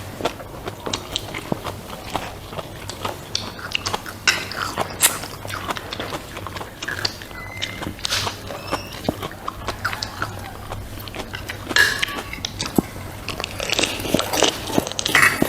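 A person eating close to the microphone: crunchy bites and chewing, a steady run of short sharp crunches and clicks over a low steady hum.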